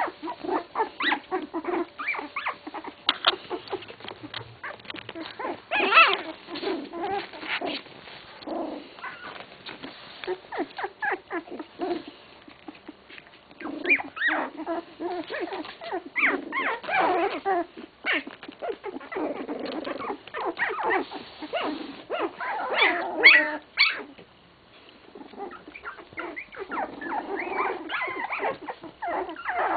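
Sixteen-day-old English Cocker Spaniel puppies whimpering, with many short, high cries coming one after another and a brief lull near the end.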